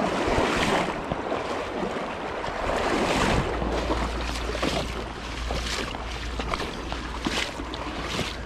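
Rushing river water with irregular splashes as someone wades through the current. A low rumble of wind on the microphone comes in about three seconds in.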